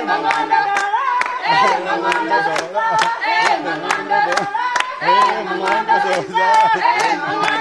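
A group of voices singing together to rhythmic hand clapping, about three claps a second.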